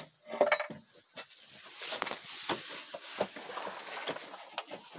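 Straw bedding rustling and crunching underfoot, with many scattered small clicks and light clinks.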